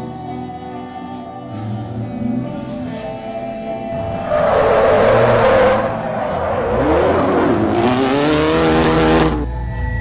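Background music with sustained tones, over which car tyres screech loudly about four seconds in, then screech again with a rising pitch from about seven seconds until they cut off suddenly near the end.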